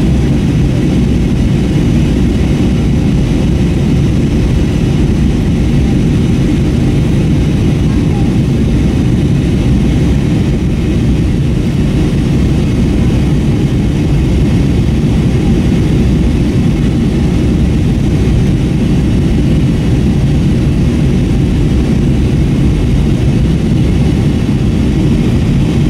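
Steady low cabin drone of an Airbus A321-232 in flight: jet engine and airflow noise heard from a window seat, even throughout.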